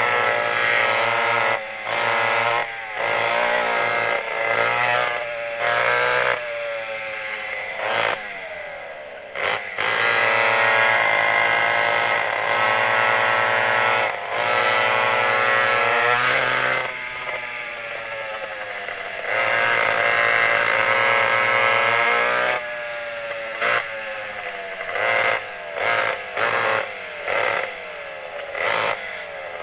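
Pair of McCulloch 87 cc two-stroke kart engines being driven hard, revving up in long loud pulls with rising pitch and cutting back sharply between them. Near the end they come on and off in a quick run of short bursts.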